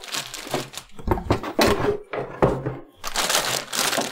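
Cardboard box and packaging being handled during an unboxing: irregular crinkling and crackling with a few sharp knocks, turning into denser crinkling near the end.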